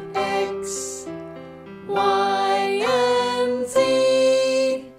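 Children's song music with long held notes that change pitch every second or so.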